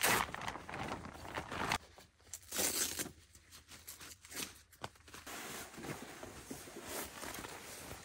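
Irregular rustling and crinkling of camping gear being handled, in short bursts with brief pauses between.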